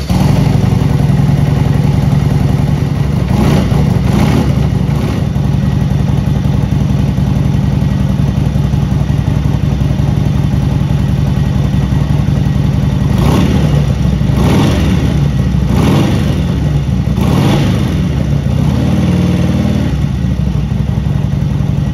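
Harley-Davidson Sportster XL 1200's air-cooled V-twin catching on the freshly installed battery and then idling, with short blips of the throttle: two revs about 3.5 and 4.5 seconds in and four more between about 13 and 17 seconds.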